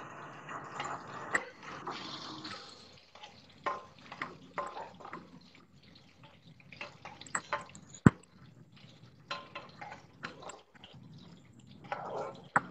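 Kitchen handling sounds: scattered light clinks and knocks of utensils and bowls, with one sharp click about eight seconds in, the loudest sound.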